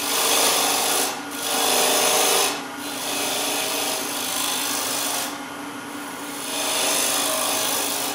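Bowl gouge cutting into a wood blank spinning on a lathe, the cut coming in several passes with short breaks between them, over the steady hum of the lathe. The cuts are forming the flat shoulder beside a chuck tenon for the jaws to rest on.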